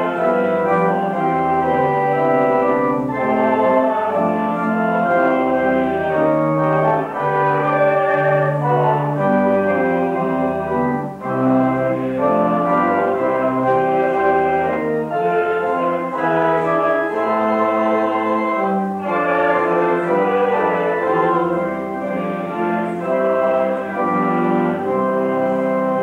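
Organ music: sustained chords held for about a second each, moving on steadily.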